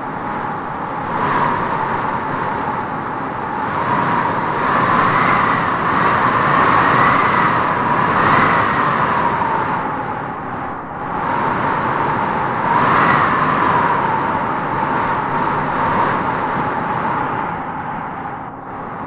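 Wind howling in gusts: a steady rushing with a whistling howl that swells and bends up and down in pitch, strongest through the middle and again about two-thirds of the way through.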